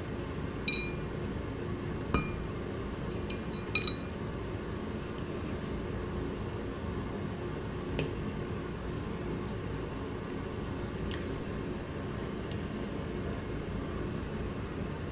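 About nine light clinks of small hard objects, several with a short ringing tone, scattered over a steady low hum.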